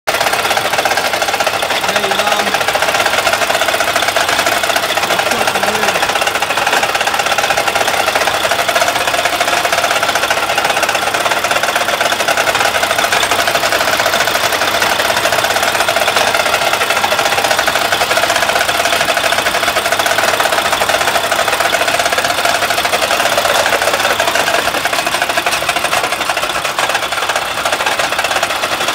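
Mack MP8 13-litre inline-six diesel running with a steady, fast clatter over the engine note. The truck no longer builds air pressure with this noise, and a mechanic took it for an engine needing replacement.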